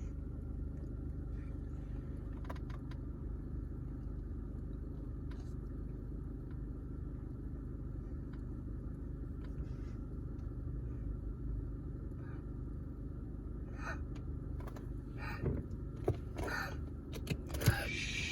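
Car engine idling with a steady low rumble, heard from inside the car. In the last few seconds several short knocks and clicks, one of them sharp and loud near the end.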